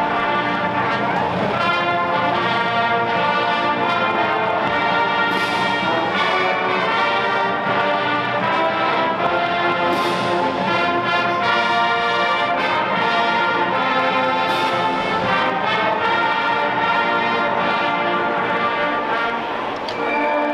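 Marching band playing a brass-led piece, trombones, trumpets and horns in full sustained chords, with three loud crashes about every four and a half seconds.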